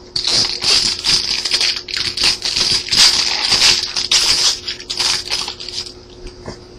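Crinkling of a foil trading-card pack wrapper being handled and torn open, a dense crackle that starts sharply and dies down to a few soft rustles about five seconds in.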